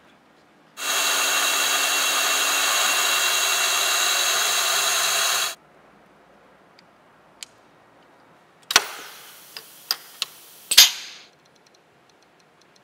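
A workshop machine running steadily for about five seconds, a hiss with a high whine in it that starts and stops abruptly. Later, a quick run of sharp metal clicks and taps from small metal parts being handled.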